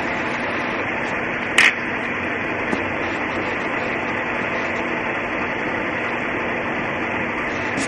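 Steady, even background hiss with one sharp click about one and a half seconds in.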